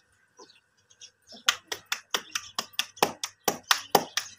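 Hands patting a small ball of paratha dough flat between the palms: quick, even slaps at about four a second, starting about a second and a half in.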